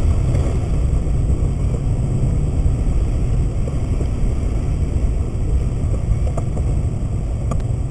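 Steady low rumble of tyre and engine noise inside a car's cabin on a wet, slushy road. A couple of faint ticks near the end come as the windscreen wiper sweeps.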